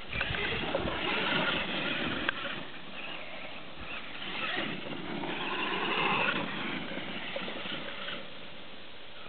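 Traxxas E-Revo RC monster truck's brushless electric motor whining, its pitch rising and falling in surges as the truck speeds up and slows on grass, loudest about a second in and again around six seconds in.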